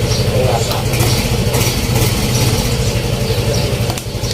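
A 97-year-old Singer treadle sewing machine running under foot power, its mechanism clattering in a fast, even rhythm.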